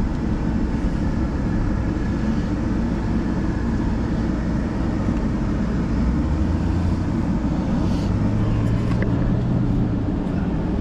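Vehicle engine and road noise heard from inside the cab, a steady rumble; a low engine hum grows stronger for a few seconds about two-thirds of the way through.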